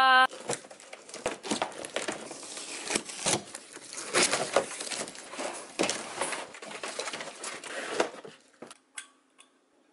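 Cardboard boxes and plastic wrapping being handled and rummaged through: irregular rustling and crinkling that thins out to a few faint clicks about eight and a half seconds in.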